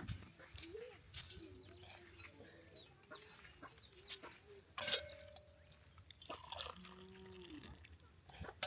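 Chickens clucking, a string of short calls with a few sharp clicks and one sharper knock about five seconds in.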